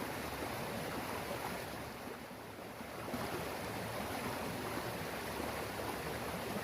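Flowing stream water: a steady rushing hiss that eases slightly for a moment in the middle.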